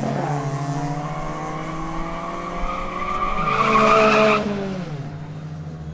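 Two Nissan Sentra B13 sedans accelerating hard down a drag strip, their engines revving up through the gears. The pitch drops at the start, climbs to the loudest point about four seconds in, then falls and fades as the cars pull away.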